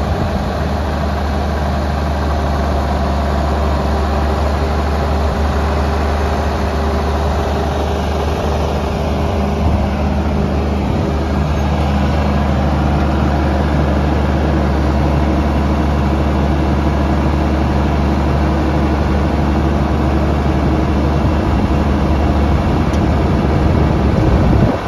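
John Deere 4430 tractor's turbocharged six-cylinder diesel engine running steadily at idle with a deep, even hum.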